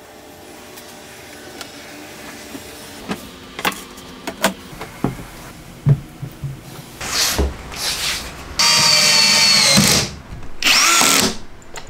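Cordless drill driving screws into plywood in two loud runs near the end, the first about a second and a half long, the second shorter. Before that come light knocks and handling noises on the wooden bench.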